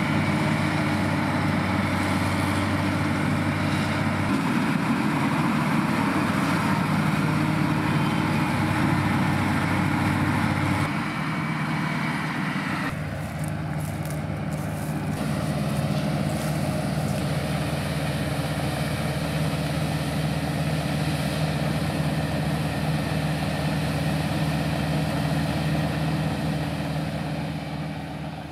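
New Holland combine harvester working, its diesel engine and machinery giving a steady loud hum. About eleven seconds in, the deep low part of the hum drops away and the tone shifts. The sound fades out at the end.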